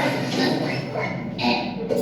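Soundtrack of an animated projection-mapping show: music and cartoon sound effects, with a short hiss about one and a half seconds in.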